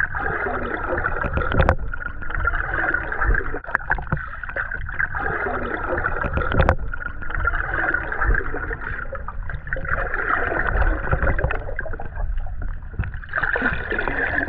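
Water heard through a submerged camera under a paddled kayak: a muffled, steady rush that swells every two to three seconds with the paddle strokes, over a low rumble, with a few sharp clicks.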